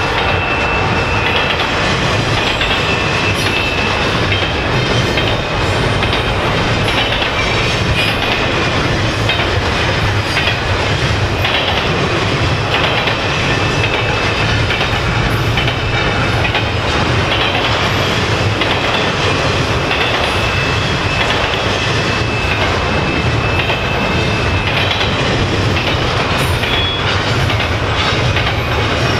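Double-stack intermodal container train's well cars rolling past steadily, wheels clattering over the rails. A faint high-pitched wheel squeal comes and goes.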